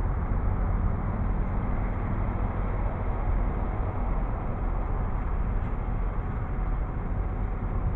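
Steady low rumble of road traffic on the street.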